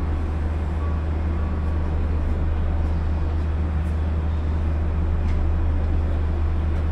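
Steady low hum from an Osaka Monorail car's onboard equipment while the train stands at a station, heard from inside the cab.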